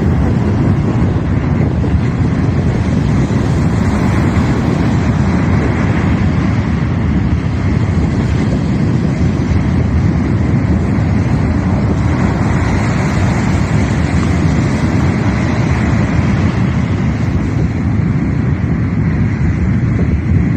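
Sea surf washing steadily, overlaid by strong wind buffeting the microphone.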